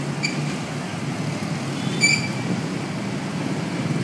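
Street traffic, motorcycles and cars passing with a steady rumble. Two short shrill chirps cut through it, one just after the start and a louder one about two seconds in.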